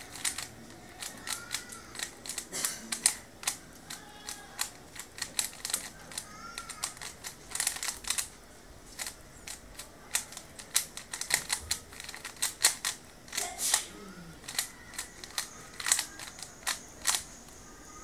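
A plastic 3×3 Rubik's Cube being turned rapidly by hand: quick, irregular clicking and clacking of the layers. The turning stops about a second before the end, as the cube is solved.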